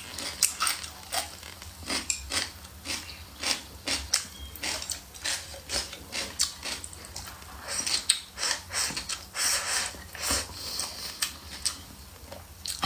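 Close-up eating sounds: a person chewing food, with rapid irregular clicks and crunches several times a second.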